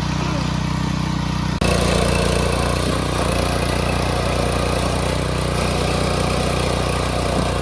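A steady, low engine hum, idling without change, that jumps abruptly louder about a second and a half in.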